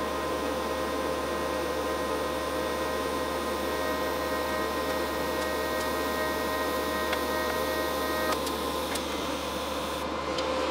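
Weldpro TIG welder arc on 304 stainless steel exhaust tubing: a steady electric buzz with several held tones, cutting off about eight seconds in and leaving a steady background hiss.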